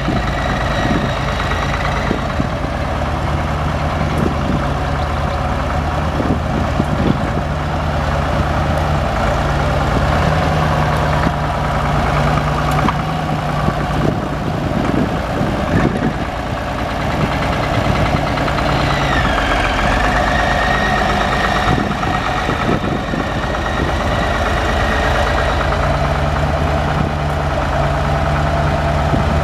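Case 970 tractor's 6.6-litre six-cylinder diesel engine idling steadily.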